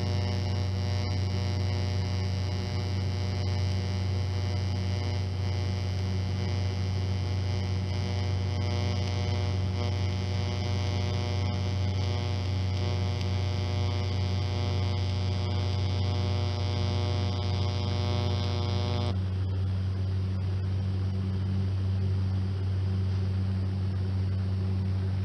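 Electric welder humming steadily, with a higher, even buzz over the hum while welding on the muffler; the buzz cuts off suddenly about 19 seconds in while the hum carries on.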